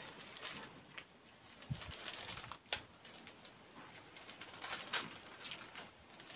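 Plastic spaghetti packet being crinkled and handled as it is opened, with irregular crackles and sharp ticks.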